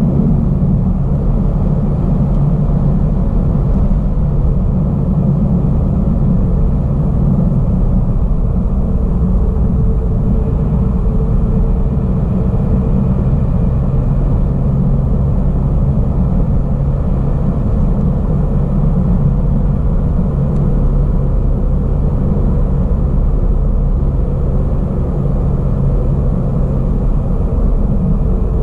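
Steady low road and engine rumble of a car cruising on an asphalt road, heard from inside the cabin, with a faint steady hum.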